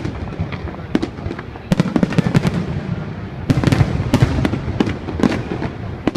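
Fireworks going off: a quick string of sharp bangs and crackles over a low rumble, thickest about two seconds in and again around four to five seconds in.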